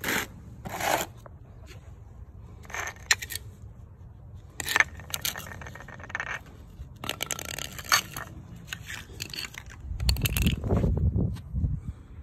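Stiff plastic blister packs of wire brushes and grinding discs crackling and scraping on concrete as they are handled and set down, in several short bursts. A low rumble comes about ten seconds in.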